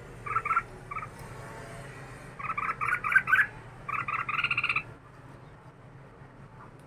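Red-whiskered bulbul singing in bursts of short, quick, chattering notes, four groups in all, the longest and loudest in the second half, stopping about five seconds in.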